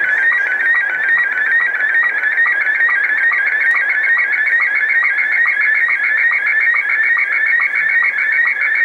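Slow-scan television (SSTV) picture signal from a shortwave pirate station, heard through a communications receiver in upper sideband. It is a steady, fast-warbling stream of tones with a short lower sync pip repeating about four times a second, over shortwave static.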